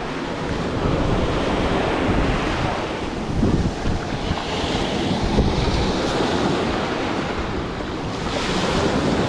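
Sea waves washing onto the beach, with gusty wind rumbling on the microphone. The hiss of the wash swells a few seconds in and again near the end.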